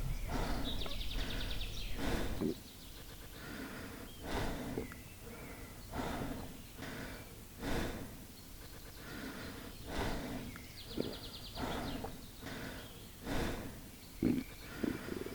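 Stomach growling and gurgling: repeated rumbles a second or two apart, with two high, rapid squeaky gurgles, one about a second in and one near the end.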